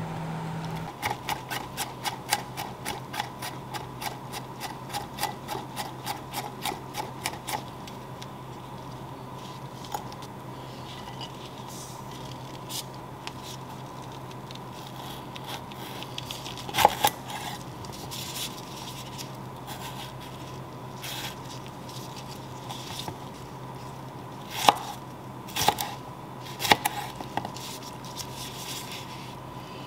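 Chef's knife striking a wooden cutting board. First comes a fast, even run of chops, about five a second, for several seconds. Later come a few separate knocks as roma tomatoes are sliced.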